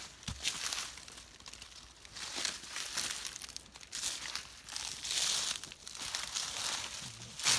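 Footsteps crunching and shuffling through dry fallen leaves on a forest floor: uneven steps of people walking at a steady pace.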